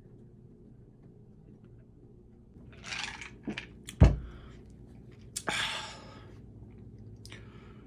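A man breathing out audibly after swallowing a drink, a few short breathy exhales with small clicks between them. About four seconds in a single heavy thump, the loudest sound, cuts in.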